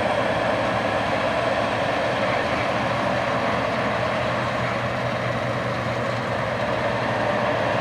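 Heavy harvest machinery running steadily at working speed, a loud, unbroken mechanical drone with a low hum underneath.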